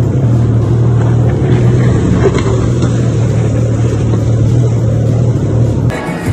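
Jet ski engine running at speed with a steady low drone, under a rush of wind and water noise. Just before the end it cuts off abruptly to music.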